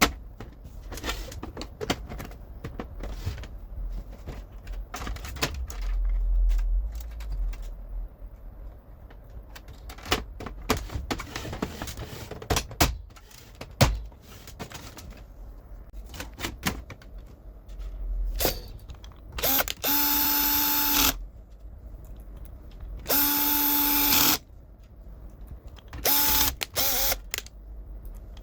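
Plastic parts of a laser printer clicking and knocking as they are fitted back together. In the last third a cordless electric screwdriver runs in several short bursts of about a second each, at a steady pitch, driving screws in.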